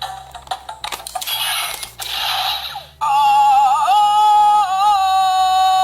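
Electronic sound effects from a Power Rangers Animal Force (Zyuohger) transformation toy. It starts with clicks and short noisy whooshes, then about three seconds in a loud, high synthesized singing voice comes in, holding a long wavering note.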